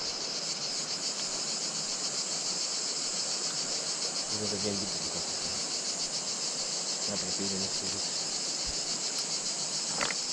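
Steady, high-pitched chorus of insects buzzing without pause, over the faint rush of a shallow river running over stones. A few brief clicks come near the end.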